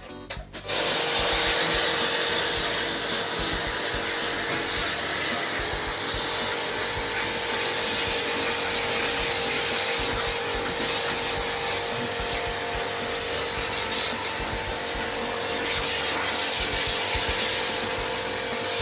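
A power tool starts about a second in and runs steadily with a constant whine over a rushing noise.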